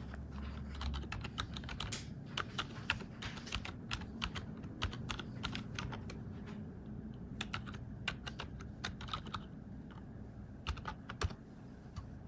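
Typing on an ELECOM TK-FDM063TBK wireless membrane keyboard: irregular runs of key clicks, thinning out about halfway, with a few last presses near the end.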